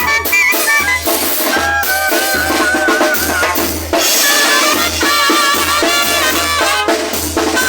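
Zacatecan tamborazo band playing: horns carry a melody over the steady beat of the tambora bass drum and cymbals.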